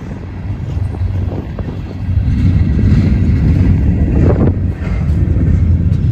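Long freight train pulled by diesel locomotives rolling past with a steady low rumble that grows louder about two seconds in, with wind on the microphone.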